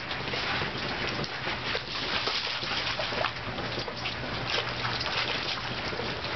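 A dog splashing in a muddy puddle, pawing and stepping in the water: many short splashes over a steady watery hiss.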